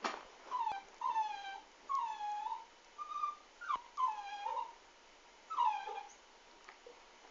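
A pet making a run of about seven short, high whining cries, most dipping in pitch, with a sharp click at the start and another about halfway through.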